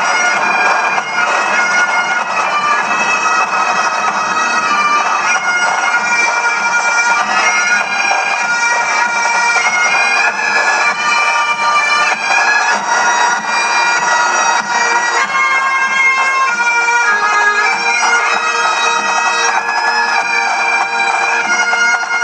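Massed Great Highland bagpipes of a marching pipe band playing a tune: a steady drone under a shifting melody, loud and unbroken.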